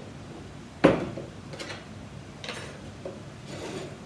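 Kitchen bowls being handled on a countertop: one sharp knock about a second in, then a few fainter taps and clinks.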